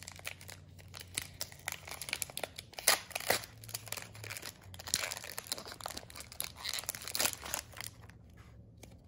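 Foil Pokémon card booster pack being crinkled and torn open by hand: irregular crackling and tearing, loudest in the middle, thinning out near the end.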